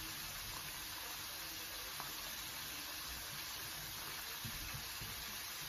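Steady, even hiss of hot oil frying a whole chicken in a pan.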